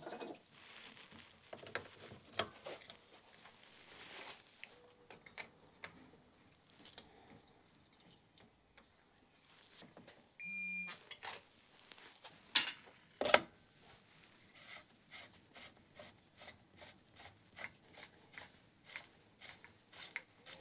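Faint metallic clicks and taps from hand work on a motorcycle fork leg as its damper rod, spring and top cap are put back together with a spanner. There is a short beep about ten seconds in, two louder clicks a little after, then a run of light clicks about two a second as the top cap is turned by hand.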